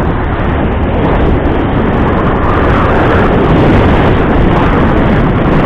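Steady, loud riding noise from a motorbike on the move: the engine running, with wind rushing over the action camera's microphone.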